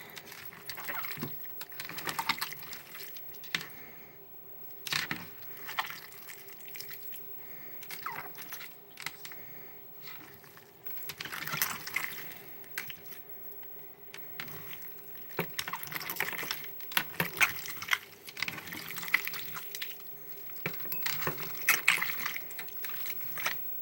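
Homemade glue-and-borax slime being kneaded by hand: irregular wet squelches, sticky smacks and clicks. The slime is crumbly and keeps falling apart, which the maker puts down to too much borax.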